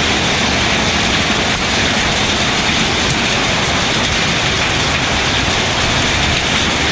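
Heavy hailstorm: hail and rain falling hard in a dense, steady din with no let-up.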